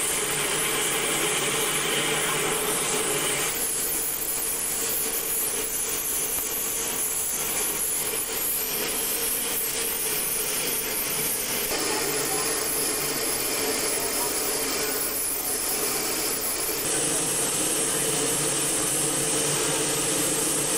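Steam locomotive venting steam: a loud, steady hiss that shifts in strength a few times.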